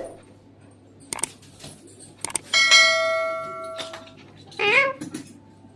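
A bell-like ringing tone that starts suddenly and fades over about a second and a half, followed near the end by a short, wavering call from a green parrot. A few faint clicks come about a second in.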